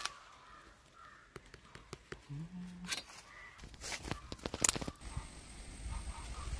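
Birds cawing in the background, with sharp clicks and knocks of dry wooden sticks as the stick frame is worked on and climbed, the loudest knock about four and a half seconds in.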